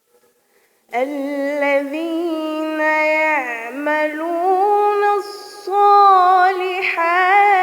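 A female voice reciting the Quran in melodic tajweed style, starting about a second in with one long held phrase, its pitch gliding and ornamented with wavering turns.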